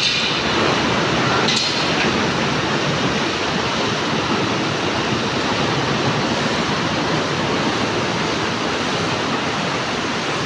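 Welding arc burning steadily with a continuous crackling hiss, with two brief sharper flares near the start and about a second and a half in.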